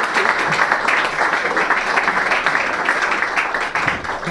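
Audience applauding, a dense patter of many hands clapping, beginning to fade near the end.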